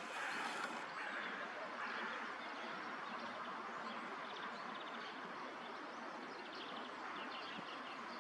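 Steady outdoor background noise with faint, quick chirps of small birds a few seconds in and again near the end.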